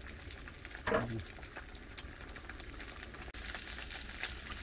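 Beaten eggs sizzling softly in a small frying pan, with light crackles and the clicks of chopsticks stirring; the sizzle grows a little louder after about three seconds. A short murmur of voice about a second in.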